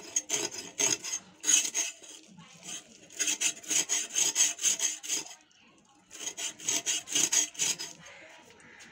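Snakehead fish being scaled against the blade of a boti: quick rasping scrapes, about three or four a second, in three runs with short pauses between.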